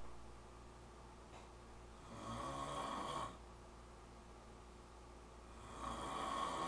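A man snoring in his sleep: two long snores, each lasting about a second and a few seconds apart, with a faint steady hum underneath.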